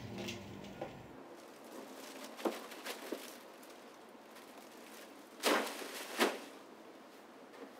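A plastic trash bag rustling as it is handled and set down, with two louder crinkles near the end and a few faint scuffs before them.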